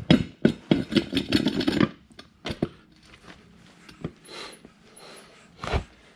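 Hand tools clattering and knocking during a tire change: a quick, dense run of knocks over the first two seconds, then single knocks every second or two with faint rubbing between.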